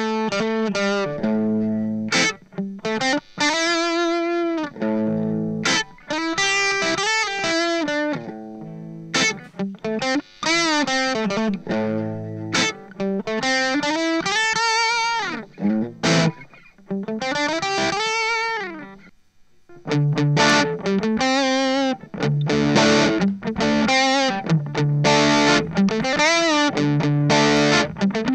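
Electric guitar played through an M-vave Mini-EFX pedal in overdrive, on its blues overdrive setting: single-note lead lines with bent, wavering notes. The playing stops briefly about two-thirds of the way through, then resumes with heavier, lower riffing.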